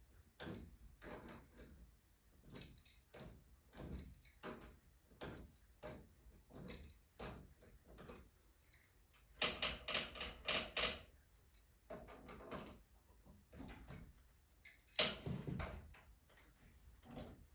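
Metal tools and garage door spring hardware clinking and jangling in short, repeated bursts, with two longer, louder rattles about ten and fifteen seconds in.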